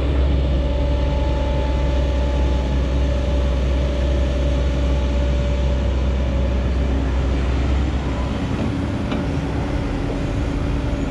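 Heavy diesel earthmoving machinery running steadily: a deep engine drone with a held whine over it, easing slightly about eight seconds in.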